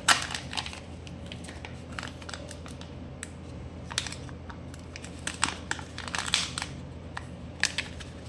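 Foil seal of a Kinder Joy egg crinkling as it is peeled off and the plastic capsule is handled. Irregular sharp rustles, loudest just after the start, with bunches of crackling around four seconds and between five and six and a half seconds in.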